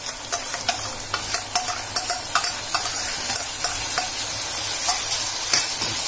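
Chopped onions and tomatoes sizzling as they fry in oil in a kadai. A steel spoon and spatula clink and scrape against the pan and a steel bowl as ginger-garlic paste is scraped in and stirred.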